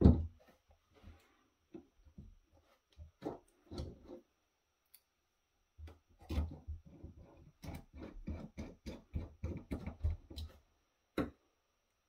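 Small clicks and taps of metal and plastic parts as a USB-C docking station's circuit board, in its perforated metal shield, is handled and fitted back into its case. A few scattered taps come first, then a fast run of clicks in the middle, then a single click near the end.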